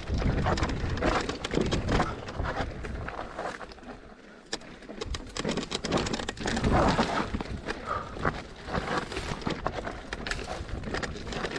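Electric mountain bike rattling and knocking as it rides down a rough trail, with a steady low rumble underneath. It goes quieter for a moment about four seconds in.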